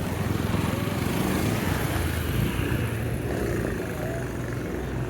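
Street traffic: a motor vehicle engine running steadily close by, over general road noise.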